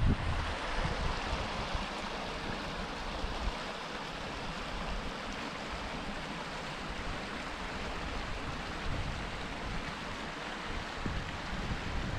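Mountain stream rushing and splashing over boulders below a footbridge: a steady hiss of running water, with wind rumbling on the microphone at the start and again near the end.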